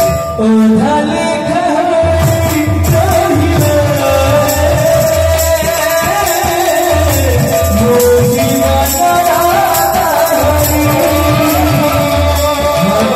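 Live kirtan music through a PA: a man sings a sliding devotional melody over a steady drum beat, with metallic jingles marking the rhythm.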